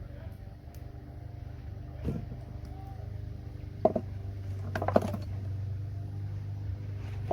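A few sharp clicks and metal clinks from cutting and handling scrap connectors, about 2, 4 and 5 seconds in. A steady low hum runs underneath.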